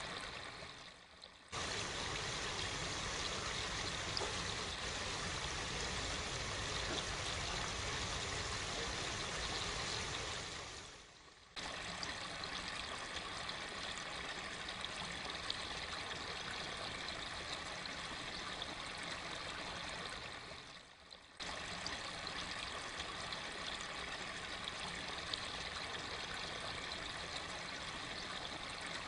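Running water, like a small stream trickling steadily. It dies away and starts again abruptly three times, about ten seconds apart.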